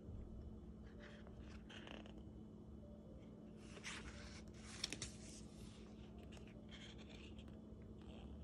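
Faint rustling of paper as the sheets of a sticker pad are turned and handled, coming in several short bursts, with a couple of light clicks about five seconds in.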